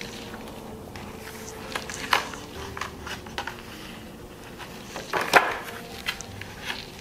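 Paper pages of a picture book being handled and turned: a few short rustles and soft taps, the loudest about five seconds in.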